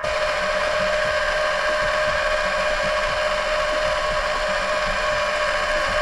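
LIECTROUX B3000 PLUS robot vacuum running as it drives toward its charging base, heard close up from on top of the robot: a steady machine whine with several held tones over a noisy hiss.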